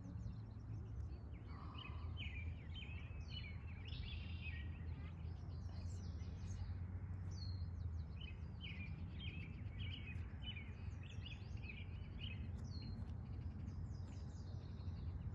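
Small birds chirping and singing in short repeated phrases, over a steady low rumble of background noise.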